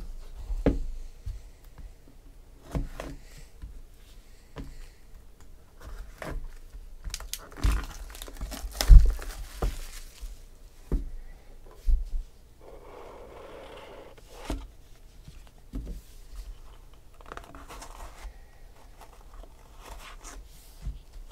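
Hands unwrapping and opening a cardboard box of trading cards: scattered knocks and taps on the table mixed with crinkling and tearing. The loudest thump comes about nine seconds in.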